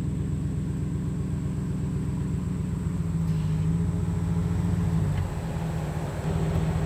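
An engine running with a steady low hum. A little after three seconds in its note strengthens, drops back just after five seconds, and comes up again about a second later.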